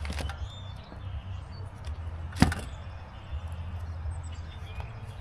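Uneven low rumble with one sharp knock a little before halfway, and a few fainter ticks.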